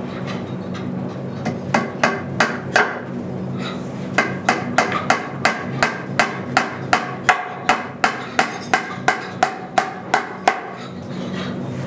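Hammer blows on metal, a quick run of five, then a steady run of about twenty at roughly three a second, each strike ringing briefly. A steady low hum runs underneath.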